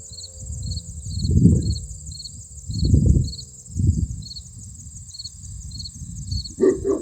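Crickets and other insects trilling steadily, a high buzz with a chirp about twice a second, under low gusts of wind buffeting the microphone. A faint, slowly falling tone, the tornado siren winding down, fades out in the first two seconds or so, and three short sounds come near the end.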